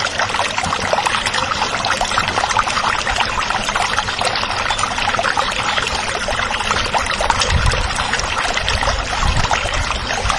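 A thin stream of water pours steadily from a miniature hand-pump spout into a plastic bowl, splashing and trickling. A small battery-powered pump feeds the stream.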